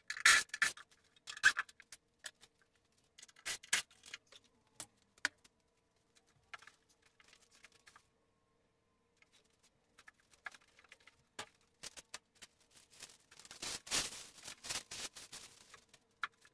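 Unpacking noises around a newly uncrated sliding table saw: scattered clicks, knocks and rustling of parts and packing being handled. There is a quiet stretch in the middle, then a busier run of rustling and clicking near the end.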